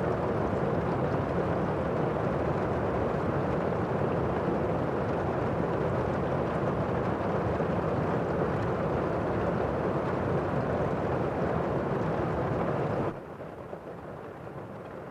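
Steady rain, a dense, dull hiss with no single drops standing out; near the end it drops suddenly to a quieter, softer level.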